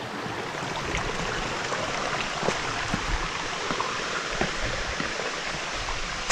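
A flowing mountain stream: a steady rush of running water.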